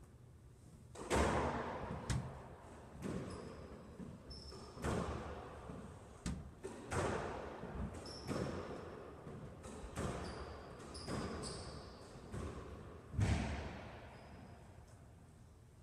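Squash rally: the ball cracking off racquets and the court walls about once a second, each hit echoing in the court, with the loudest hits about a second in and again about three-quarters through. Short high squeaks of shoes on the court floor come between the shots.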